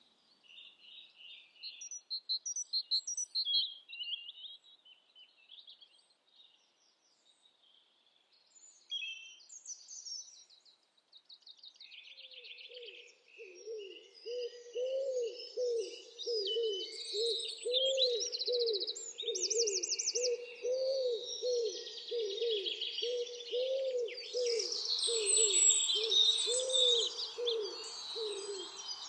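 Songbirds singing at dusk in high, thin, varied phrases with pauses between them, among them a European robin. About twelve seconds in, a low hollow call starts up beneath them and repeats steadily about twice a second. Near the end the birdsong grows fuller.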